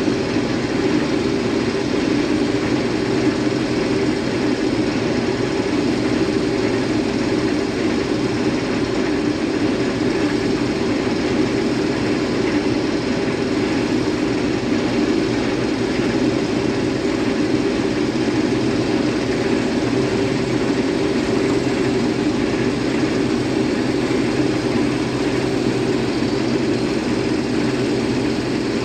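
Case IH Axial-Flow combine running steadily under load while harvesting wheat: an even, unbroken drone of engine and threshing machinery.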